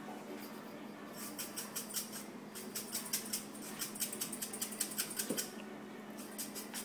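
Salt being shaken in: a quick run of light, high ticks and rattles in two spells, about a second and then about three seconds long, over a steady low hum.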